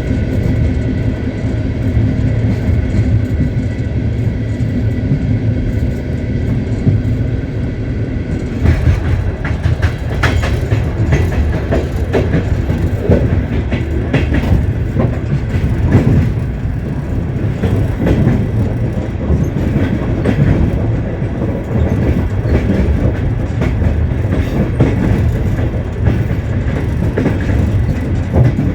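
Passenger train running along the track, heard from inside the carriage: a steady rumble of the wheels on the rails. After about eight seconds it turns rougher, with irregular knocks and clatter from the wheels.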